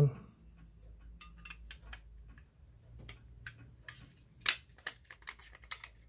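Light metal clicks and taps as the cover plate is fitted back onto the case of an Era 573 mortice sashlock, with one sharp click about four and a half seconds in.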